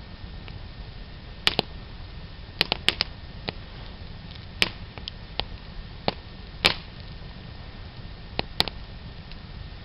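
Wood fire crackling: a dozen or so sharp, irregular pops and snaps over a low steady rumble. The loudest crack comes a little past the middle.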